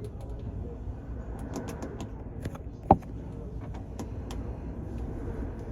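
Car ferry under way: a steady low rumble of the ship and sea, with scattered light clicks and creaks and one sharp loud knock about three seconds in.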